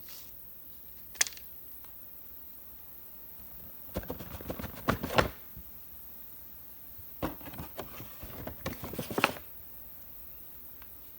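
Objects being handled: a single sharp click about a second in, then two bursts of quick clicking, crinkling noise, each about two seconds long.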